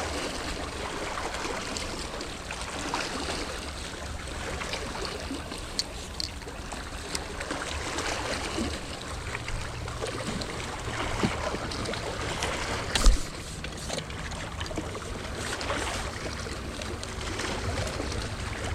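Steady rush of running water from a creek, with a few light clicks and one sharper knock about 13 seconds in from gear being handled.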